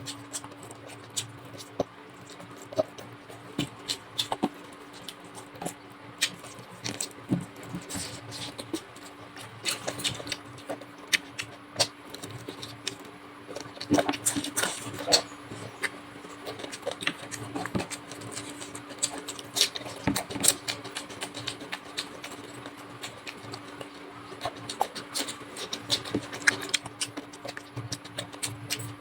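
Close-up eating sounds of chicken drumstick curry with rice: irregular wet mouth clicks, smacks and chewing. A steady low hum runs underneath.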